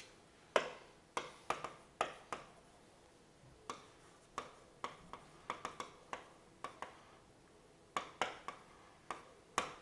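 Stylus tapping and scratching on a digital writing surface during handwriting: a string of sharp, irregular clicks, some single and some in quick clusters, with short pauses between.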